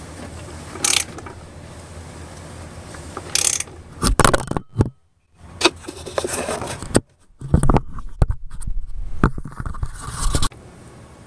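Metal tool work on the crankshaft pulley while it is turned to line up the timing marks: a couple of short metallic clicks, then a run of loud knocks, scrapes and rubbing close to the microphone as the camera is handled. The noise stops suddenly near the end.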